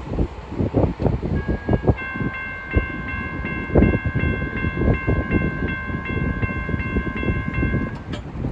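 Railroad crossing's electronic warning bell ringing, about three strokes a second, while the gate arms rise after the train has cleared. It starts about a second and a half in and cuts off near the end as the gates reach upright. Underneath runs a gusty low rumble.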